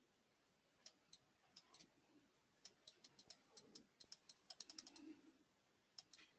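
Faint typing on a computer keyboard: a run of quick, light clicks starting about a second in, coming fastest around four to five seconds and stopping just before the end.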